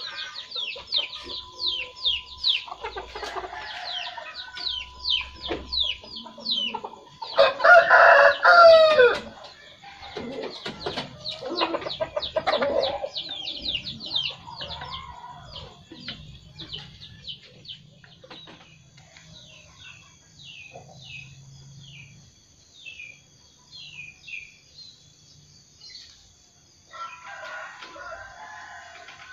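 Rooster crowing, loudest about eight seconds in, with chickens clucking, over a small bird's rapid high chirps repeating throughout.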